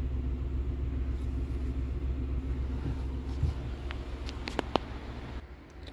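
A steady low mechanical rumble, with a few light clicks about three and a half to five seconds in.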